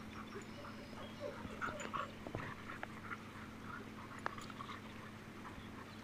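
Dogs giving short, faint yips and whimpers over a steady low hum.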